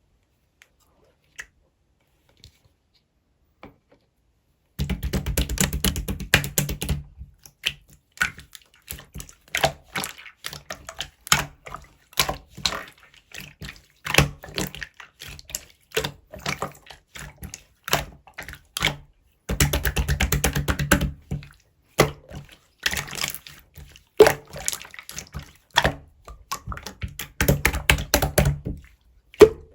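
Slime being squeezed and kneaded by hand, giving runs of fast crackling clicks and small pops from trapped air. It starts about five seconds in and comes in bursts, with single pops between.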